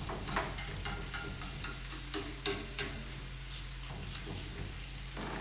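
Bacon, onion and garlic sizzling in a frying pan on low heat as the bacon fat renders, with scattered pops and crackles, most of them in the first three seconds, while the pieces are spread out in the pan by hand.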